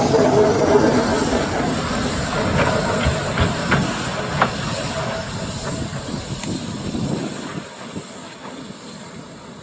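A 15-inch gauge steam locomotive pulling away: steady steam hiss with soft exhaust chuffs about twice a second and a few clicks from the wheels over the rails. It fades as the engine draws off into the distance.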